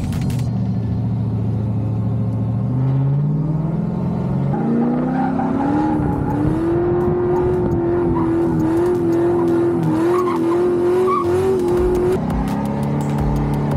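Drift car engine revving up through the gears, then held at high revs with a wavering pitch as the car slides sideways, its tyres smoking on the tarmac; the revs drop near the end.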